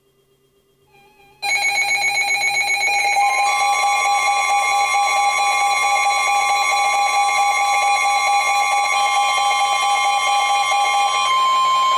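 NOAA Weather Radio emergency alert signals from several stations sounding at once. The harsh, buzzy SAME data-burst headers start suddenly about a second and a half in. Near the end a steady, piercing single-pitch warning alarm tone of about 1050 Hz takes over.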